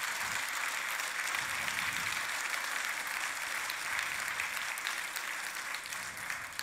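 Audience applauding: a steady wash of clapping from a full hall.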